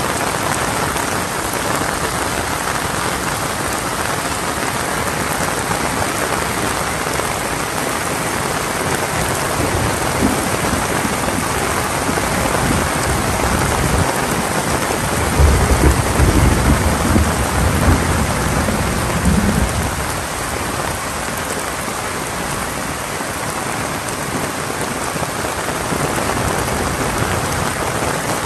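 Heavy rain falling steadily, with a low rumble of thunder rolling for about four seconds around the middle.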